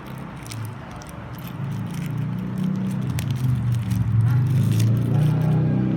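A low engine rumble that swells over the first couple of seconds and stays loud, like a vehicle running close by, with crackling and scraping of the sealed plastic packaging of the second whistle being handled.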